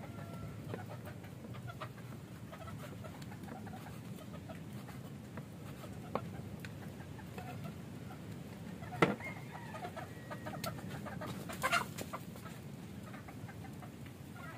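Chickens clucking, with scattered light taps of a knife blade on a wooden cutting board as fish is sliced; one sharper knock about nine seconds in.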